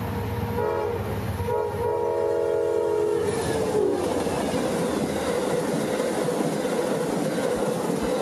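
Amtrak passenger train's diesel locomotive horn sounding a chord in separate blasts, the last one long, its pitch dropping as the locomotive passes at speed about three and a half seconds in. The rush and clatter of the passenger cars going by follows.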